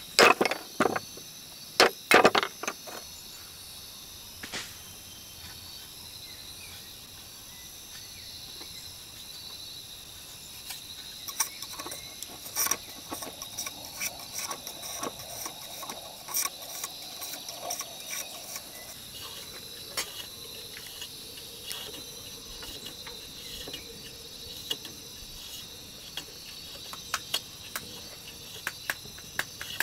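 Insects chirring steadily, with a few loud sharp knocks in the first seconds and irregular light clicking and tapping from about a third of the way in.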